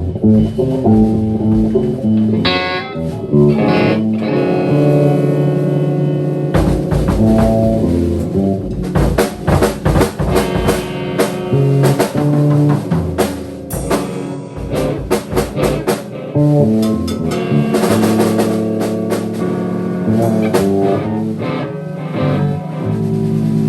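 Instrumental rock band improvising: guitar and bass holding sustained notes, with a drum kit coming in hard about six and a half seconds in and playing on.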